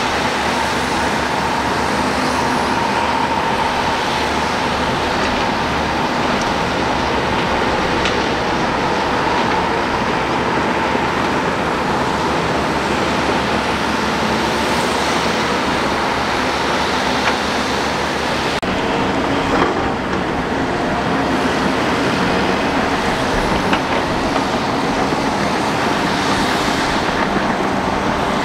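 Shantui crawler bulldozer running steadily under load as it pushes dirt: diesel engine noise with its steel tracks clanking.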